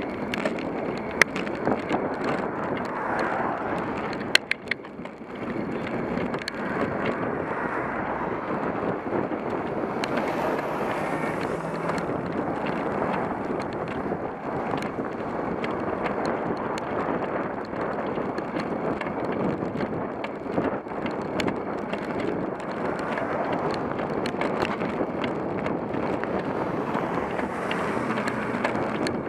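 Steady wind rush over a bicycle-mounted camera's microphone while riding, with cars going past close alongside. A few sharp clicks in the first five seconds.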